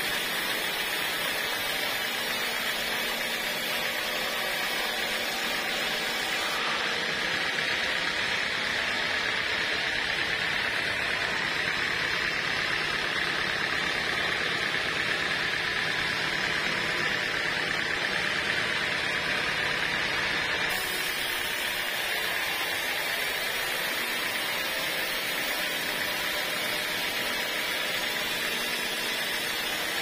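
Band sawmill running and its blade sawing through a teak beam: a steady, even hiss over the machine's drone.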